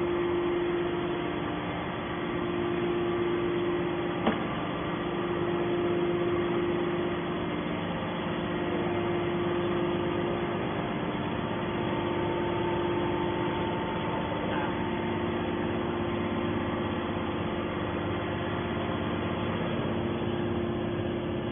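Hydraulic metal baler's power unit running with a steady hum, and a single sharp click about four seconds in.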